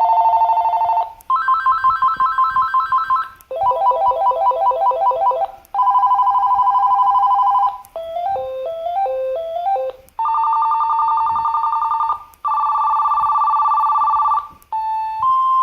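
AT&T TL92328 DECT 6.0 cordless phone playing its ringtones one after another, each for about two seconds with a short gap between. Most are electronic warbling or trilling two-tone rings. One about eight seconds in is a short stepped melody, and near the end comes a rising run of notes.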